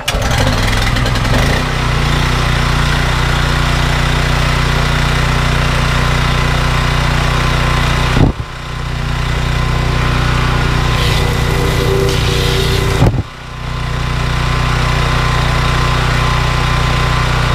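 Honda GX390 single-cylinder petrol engine on a belt-driven pressure washer catching on choke and then running steadily. About eight seconds in and again five seconds later, a sharp click, after which the engine sound drops briefly and builds back up.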